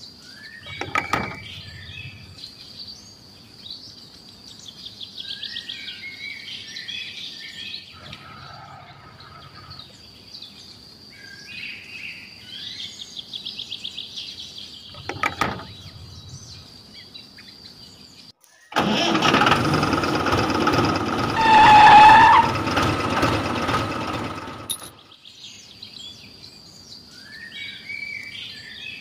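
Small birds chirping over a steady high whine. There are two sharp clicks, and past the middle about six seconds of loud rushing noise that starts and stops abruptly, with a short pitched tone inside it.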